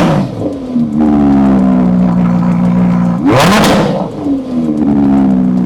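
Audi R8 V10 Performance's 5.2-litre V10 howling as it is revved twice: once at the start and again about three seconds in. Each time the revs drop back and hold at a steady, slowly falling note.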